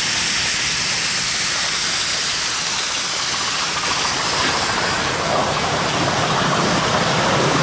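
Miniature steam locomotive, a scale model of an LMS Black 5, passing close with a steady hiss of steam. From about halfway the rumble of its passenger coaches' wheels on the rails takes over.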